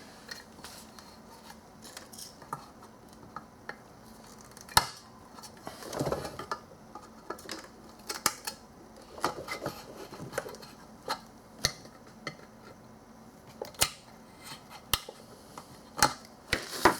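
Scattered metallic clicks and clinks of hand tools working a hose clamp and a stiff old PCV hose, with a few sharper knocks and short rustles.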